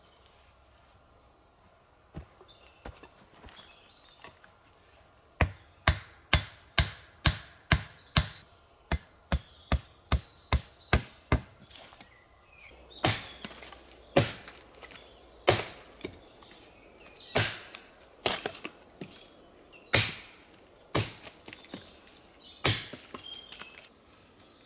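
Wood being chopped: a quick run of short blows about two or three a second, then louder, slower strikes about once a second.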